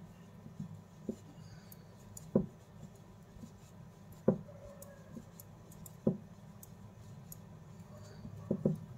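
Metal knitting needles clicking against each other now and then while fabric-strip stitches are purled: a few sharp clicks, the loudest about two and a half and four seconds in, and a quick pair near the end, over a low steady hum.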